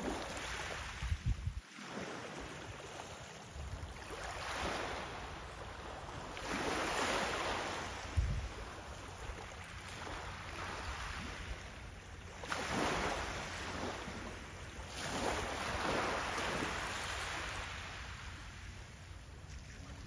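Small sea waves washing up a gravel beach and draining back, the wash swelling and fading every few seconds. A few short low thumps of wind on the microphone, the loudest about a second in and about eight seconds in.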